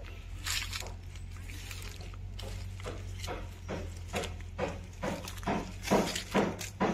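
Footsteps and rustling of leaves as someone walks through dense garden undergrowth, about two to three steps a second, louder toward the end.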